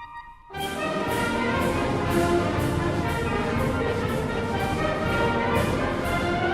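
Concert band music: a held chord fades out, then about half a second in the full band comes in with brass and a steady beat of sharp, cymbal-like strikes.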